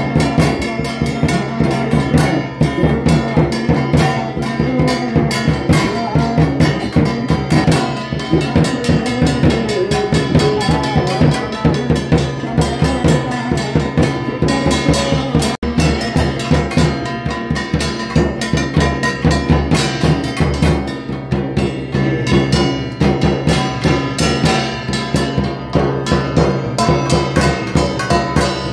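Fast, dense devotional drumming on stick-beaten frame drums and a bass drum, with ringing metallic tones and steady held notes underneath. The sound drops out for an instant about halfway through.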